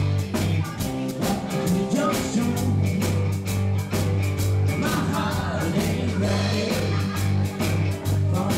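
Live country-rock band playing: drums keeping a steady beat under bass and electric guitar, with singing over the top.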